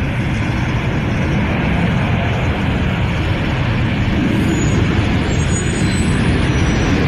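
Steady rushing rumble of a jet aircraft's engines, growing slowly louder, with a faint high whine coming in around the middle.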